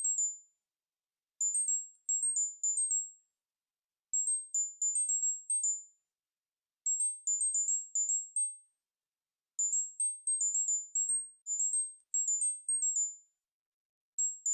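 Electronic tinnitus-relief tone pattern: very high-pitched, chime-like beeps near 8 kHz in quick runs of short notes hopping between a few pitches. The runs last one to two seconds and repeat about every three seconds with silence between, and one longer run falls in the middle.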